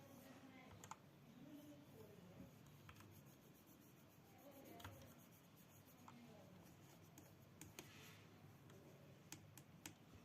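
Faint, scattered key clicks from a 60% keyboard, growing more frequent in the last few seconds as several keys are pressed in quick succession.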